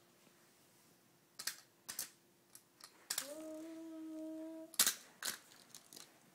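Sharp clacks of a toy die-cast monster truck knocking against a row of small toy cars, a couple at first, the loudest just before the end. Between them a child hums one steady note, sliding up at its start, for about a second and a half.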